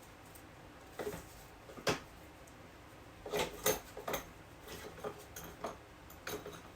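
Scattered sharp clicks and light clatter of small metal tools being handled and set down while someone rummages for a scalpel.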